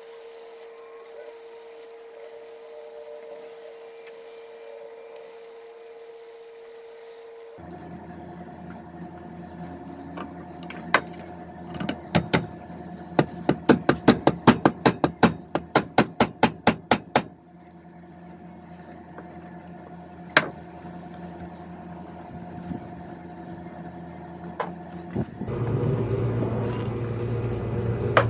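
A small wooden wedge rubbed by hand on sandpaper, soft scraping strokes, then a run of about twenty sharp hammer strikes, roughly three a second, driving a maple wedge into the kerf of a cherry hatchet handle to lock it in the axe head. A low hum comes up near the end.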